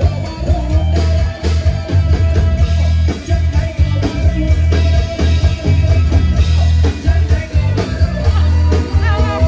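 Amplified band music with a heavy, pulsing bass line, guitar and singing.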